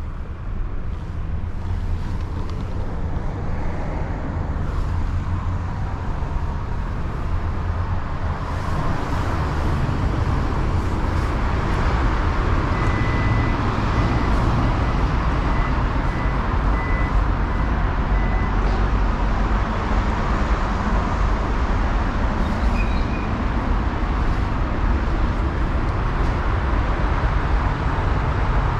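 Steady rumble of road traffic from an elevated expressway, getting somewhat louder after several seconds.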